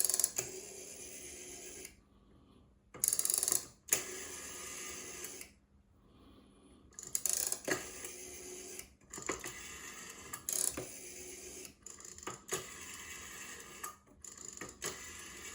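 Rotary telephone dial on a PTT 24 desk set being wound round and let go several times, each release followed by the whirring, clicking run of the dial spinning back to rest.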